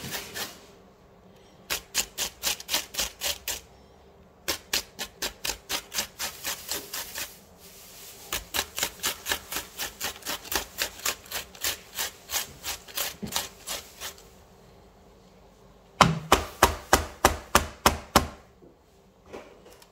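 Red onion being grated by hand on a stainless-steel grater: rhythmic scraping strokes, about four to five a second, in several runs broken by short pauses.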